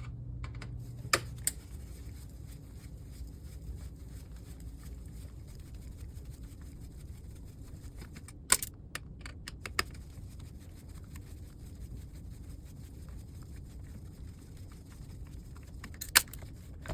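A few scattered sharp clicks and small metal taps from a screwdriver and screws being worked out of an LCD monitor's steel frame, with a short cluster of them about halfway through, over a low steady hum.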